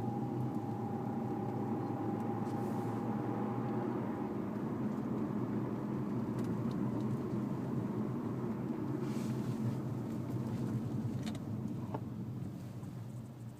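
Lexus IS300 heard from inside the cabin, accelerating through a turn: a steady drone of engine and road noise, with a thin steady whine over the first four seconds or so. This is the strange noise the owner gets when accelerating and turning with the car warm, which seems to come from the passenger side.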